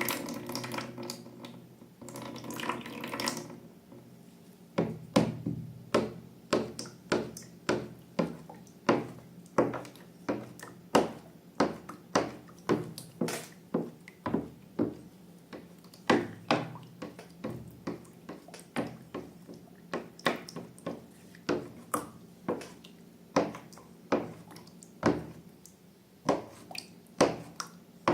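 Liquid pouring for the first few seconds, then slime being worked by hand, giving a run of sharp, wet, sticky clicks at about two a second.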